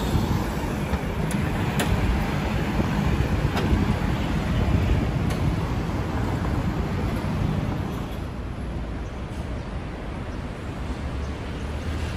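City road traffic at a multi-lane junction: a steady rumble of passing cars, easing off a little in the last few seconds.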